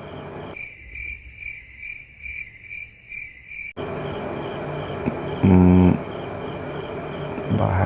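Crickets chirping in an even rhythm, about three chirps a second. A short low pitched hum sounds a little past halfway.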